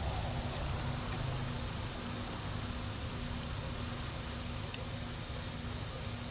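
Steady background hiss with a faint low hum that breaks off and returns about every half second.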